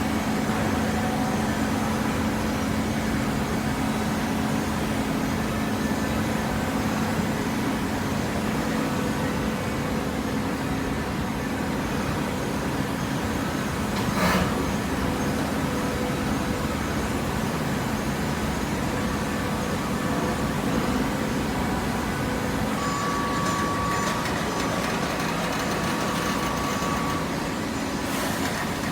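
Hydraulic paper baler running while it compresses paper: a steady machine hum with a low drone throughout. There is a single short knock about halfway through, and a higher whine comes in for a few seconds near the end.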